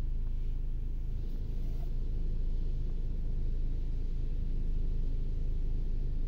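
Steady low hum of a 2014 Honda Accord's petrol engine idling.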